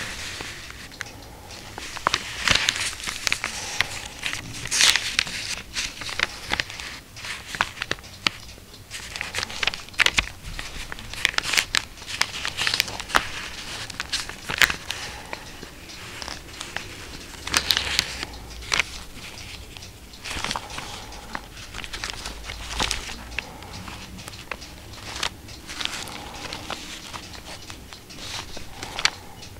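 Stiff old paper pages of a 1709 book crackling and rustling as white-gloved hands hold, flex and turn them, with irregular sharp crackles all through.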